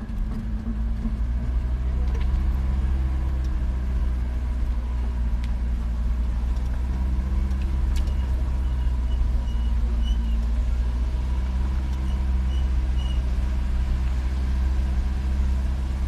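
Car engine running steadily with tyres rumbling over a gravel dirt road, heard from inside the cabin, with a few sharp clicks.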